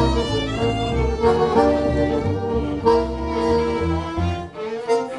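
Gypsy jazz trio of viola, accordion and double bass playing a swing tune, with the bowed viola carrying the melody over the accordion. The walking double bass stops about four seconds in, leaving sparser viola and accordion notes.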